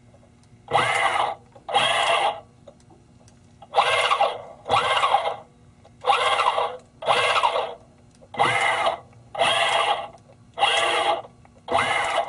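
Electric shift actuator motors on the yacht's shift-cable unit whirring in short runs: ten bursts of about half a second, in five pairs, the motor's pitch rising and falling in each as the actuators stroke the transmission shift cables.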